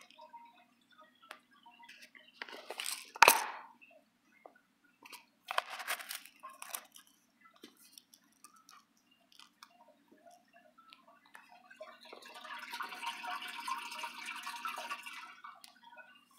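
Dry sinking fish-food pellets rattling in a small plastic jar, with a sharp click of the jar about three seconds in and another rattle a few seconds later. Near the end comes a few seconds of steady hissing, bubbling water noise from the aquarium, all over a faint low hum.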